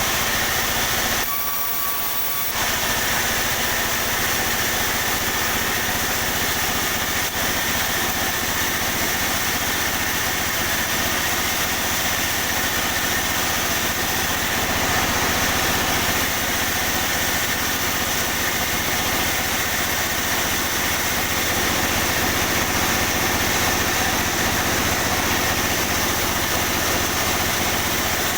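Sawmill machinery running steadily with a constant mechanical drone, which steps up slightly about two and a half seconds in.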